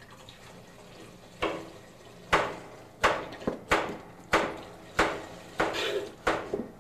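Kitchen knife chopping carrots on a cutting board: sharp knocks about every two-thirds of a second, starting about a second and a half in.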